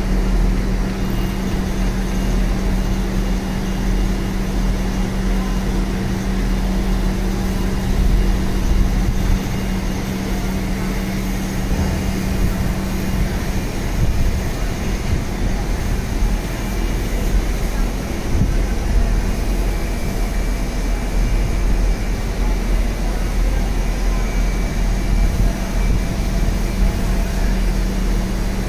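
Steady machine hum with a low rumble and a constant noisy hiss, unchanging throughout.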